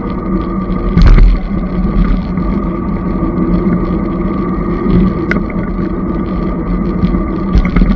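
Magnum Premium e-bike riding along a paved road: a steady electric motor hum over tyre and wind noise. A loud knock about a second in and a couple of lighter rattles later, as the bike and camera jolt over the road surface.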